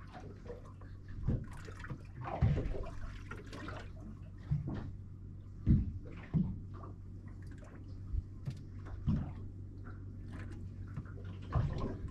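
Water lapping and slapping against the hull of a small drifting boat in irregular splashes, over a steady low hum.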